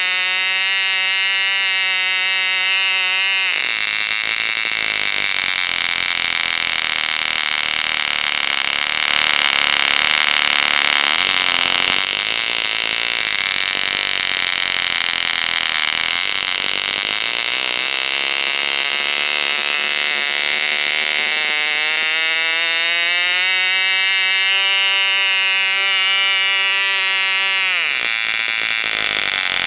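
1973 Fox 29 slant-plug glow engine running without an exhaust or muffler, turning a 9x6 propeller, very loud. It runs at about 10,700 rpm, drops to a rough low-speed run about 3.5 s in, climbs steadily back to about 11,500 rpm, then drops again sharply just before the end.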